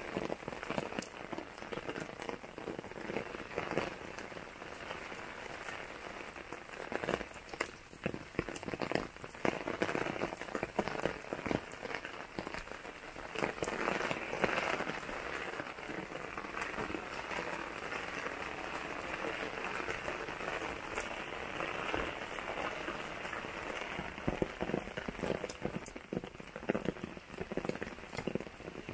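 Heavy rain falling steadily on paving, plants and pond water, thick with the hits of separate drops close by.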